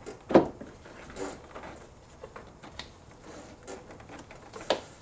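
Handling noise as gloved hands move a car's brake booster vacuum hose among plastic engine-bay parts: light rubbing and small clicks, with a sharp knock about half a second in and another near the end.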